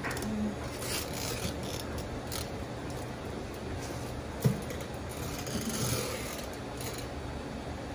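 Grooming shears snipping fur at a dog's paw, a series of short scattered snips, with one sharp thump about four and a half seconds in.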